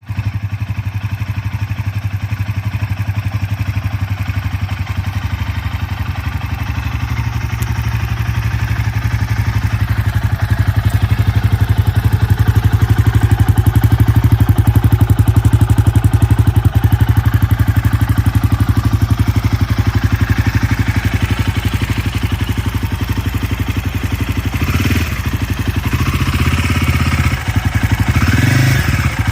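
Royal Enfield Himalayan 450's single-cylinder engine running through an aftermarket Zard exhaust, a steady idle with a low, even exhaust pulse. Near the end the throttle is blipped a few times, the note rising and falling.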